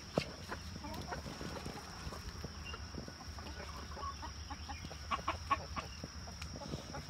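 A flock of chickens clucking softly and intermittently as they forage, the calls busiest about five seconds in. A sharp click sounds about a quarter second in, over a steady high-pitched whine.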